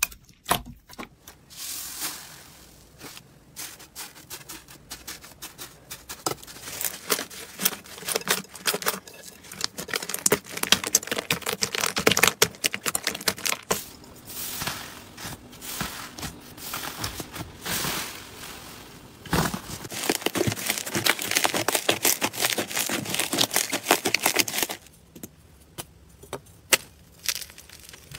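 Hands squeezing, stretching and pressing slime: dense sticky crackling, popping and tearing sounds. Near the end, the crackle gives way to a few sharp, separate crunches as brittle white material is broken apart.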